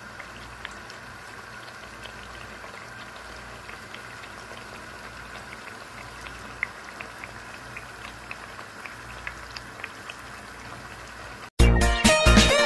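Sliced sweet potatoes frying for camote-cue in a pan of hot oil and sugar: a steady sizzle with scattered small crackles and pops. About eleven and a half seconds in, the sizzling cuts off suddenly and loud electronic intro music with a beat starts.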